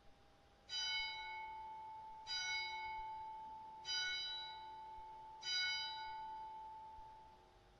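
A church bell striking four times, about one and a half seconds apart, each stroke ringing on and slowly fading under a lingering hum.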